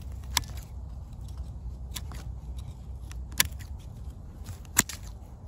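Bypass pruning shears snipping small suckers off the base of a fig tree: four sharp snips about a second and a half apart, the last the loudest, with lighter clicks of the blades between.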